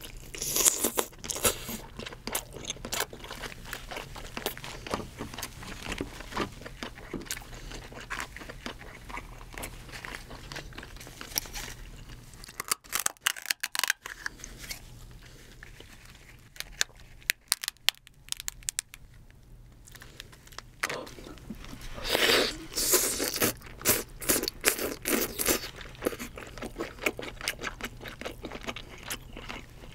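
Cooked king crab being eaten close to the microphone: the leg shell crackling and snipping under kitchen scissors, meat tearing out of the shell, and chewing, in a run of crisp clicks and crunches. The loudest run of crunching comes about two thirds of the way through.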